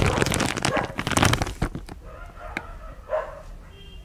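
Loud crackling rustle for the first second and a half, then a single click and one short meow from a tabby cat about three seconds in.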